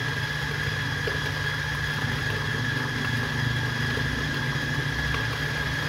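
Electric stand mixer running steadily at high speed, a constant motor hum with a steady whine, its paddle beating butter and sugar to cream them.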